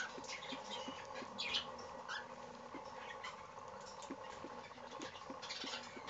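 Baby cockatiel pecking and nibbling at its food: soft, irregular clicks and taps of its beak, with a few brief high squeaks.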